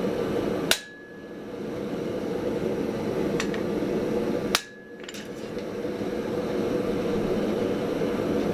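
Two sharp blacksmith's hammer blows on steel about four seconds apart, each leaving a brief ringing tone, over a steady rushing background noise.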